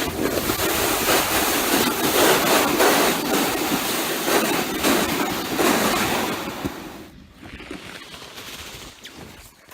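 A sled sliding fast down an icy snow slope: a loud, rushing scrape mixed with wind on the microphone, fading out about seven seconds in.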